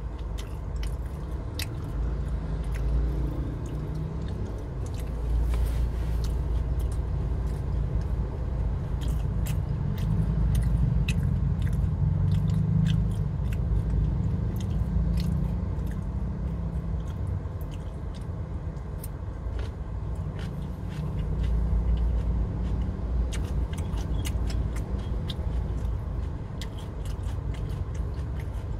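Close-up chewing and mouth sounds of someone eating siomay and batagor, with many small sharp clicks of a fork against a glass plate, over a steady low rumble in a car's cabin.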